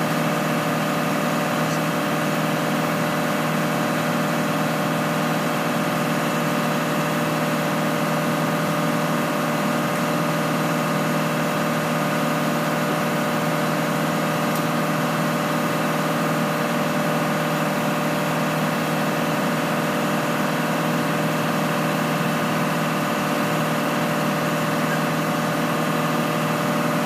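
Ship's engine-room machinery running steadily: a continuous drone with several steady tones in it that does not change.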